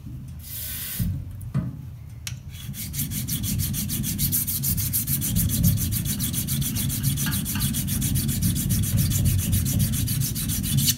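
Straight razor's spine scrubbed in quick back-and-forth strokes on an Atoma 400 diamond plate, making a dense, even rasping rhythm that starts about two and a half seconds in after a few light knocks. The strokes are grinding down a high spot in the middle of the spine.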